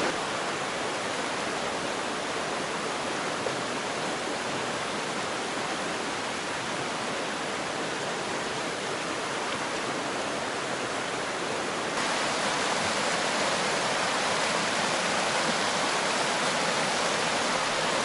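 Fast-running creek tumbling over rocks: a steady rush of whitewater, which grows a little louder and brighter about twelve seconds in.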